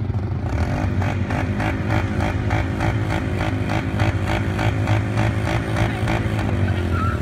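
Polaris Sportsman Highlifter ATV engine running steadily while the quad is nearly submerged, with a rhythmic splashing, about three a second, from its spinning tyres churning the water. The splashing starts about half a second in.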